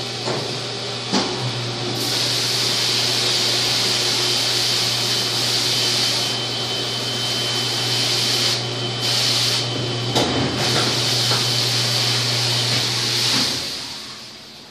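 Industrial ultrasonic parts-cleaning tank running with agitation and filtration, cleaning an aluminium engine block in a hot detergent bath. It makes a steady high hiss over a low hum, then dies away near the end as the cleaning cycle stops.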